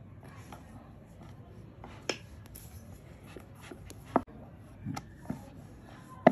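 Kitchen utensils being handled: a few sharp clicks and taps, the loudest three about two seconds apart, with faint handling noise between.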